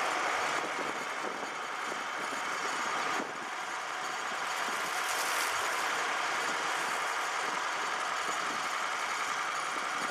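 Tractor diesel engine running steadily at idle, over a steady wash of noise.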